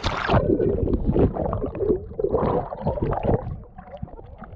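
Water in a cold pool churning and gurgling, muffled, with low rumbles. It starts suddenly and loudly.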